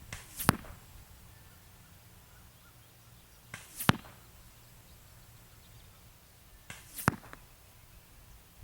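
Three shots from a Gamo Shadow 640 .177 spring-piston air rifle, about three seconds apart, each a sharp crack.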